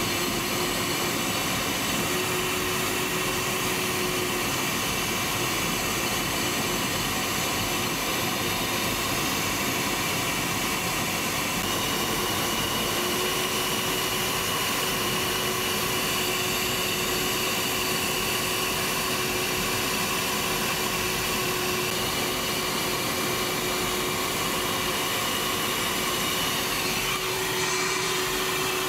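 Steady roar of airflow and engine noise inside the cockpit of a Tornado GR4 in flight, its two RB199 turbofans and cockpit air conditioning giving steady whining tones over the rush. The whining tones shift slightly about twelve seconds in, and there is a brief rustle near the end.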